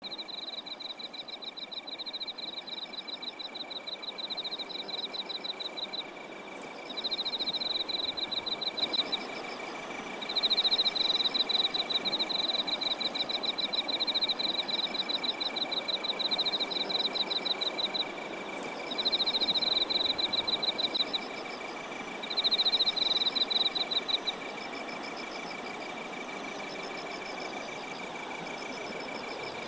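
Insects singing: a steady high continuous trill runs throughout, while another insect repeats fast pulsing chirps slightly higher in phrases of one to a few seconds.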